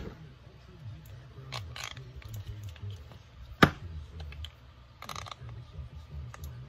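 Plastic spring clamps being handled and fitted onto a freshly glued wooden saw handle: a few short scrapes and rustles and one sharp click a little past halfway, over a low steady hum.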